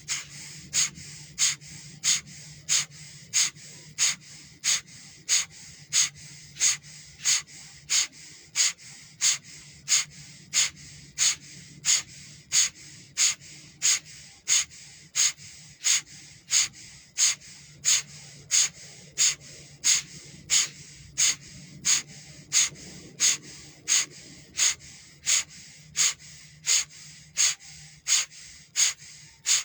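A person doing bhastrika (bellows breath) pranayama: forceful, even breaths pumped through the nose, about one and a half a second, in a steady rhythm.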